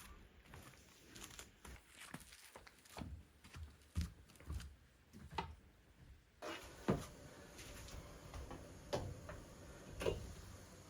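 Scattered light knocks and clicks of objects being handled in a kitchen, a few a second apart. The background hiss steps up about six and a half seconds in.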